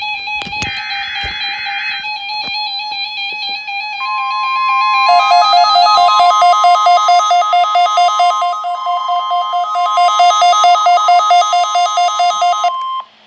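NOAA Weather Radio weekly alarm test played through a receiver. A short warbly burst of data tones opens it. About four seconds in, the steady 1050 Hz warning-alarm tone starts and holds for about nine seconds, then cuts off. A rapidly pulsing beep and music sound underneath it.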